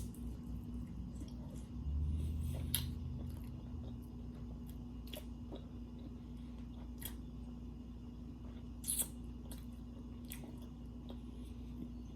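Close-up chewing and mouth sounds of someone eating tacos, with scattered sharp crunchy clicks, the loudest about nine seconds in, over a steady low hum.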